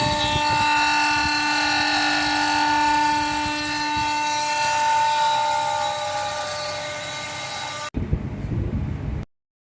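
CNC router spindle running steadily with a high multi-tone whine while milling marble. About eight seconds in the sound cuts off abruptly to a second of low rumbling noise, then dead silence.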